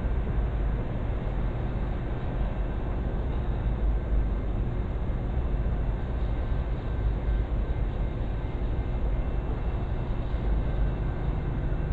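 A vehicle engine idling: a steady low rumble that does not change.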